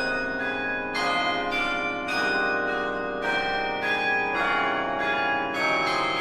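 Carillon bells playing a moderate-tempo melody over slower bass bells, each struck note ringing on under the next.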